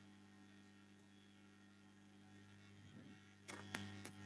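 Near silence with a steady low electrical mains hum. A few short clicks come in near the end.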